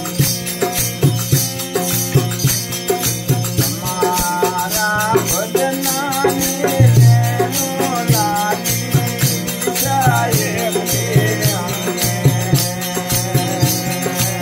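Gujarati folk devotional bhajan: a tamburo drone strummed under a steady rhythm of manjira hand cymbals and kartal wooden clappers with jingles. A man sings a long, wavering line from about four seconds in to about eleven seconds, then the instruments carry on alone.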